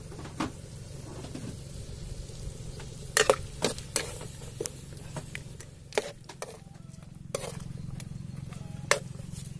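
Metal spoon clinking and scraping against a metal wok while stirring fish in coconut milk, with sharp clinks bunched around three to four seconds in and single ones later. A steady low hum runs underneath.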